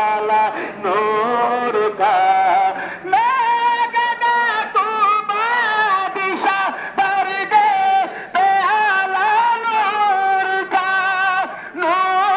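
A man singing devotional verse (naat) into a microphone, in long held notes that slide up and down, broken by short pauses for breath.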